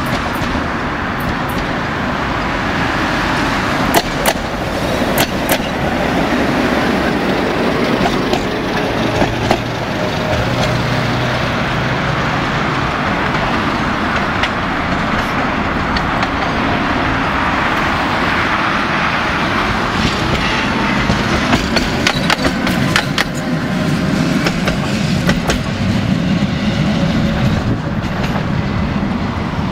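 Tatra trams running along their track, with the wheels sending out scattered sharp clicks and clanks over the rails, against steady road traffic noise.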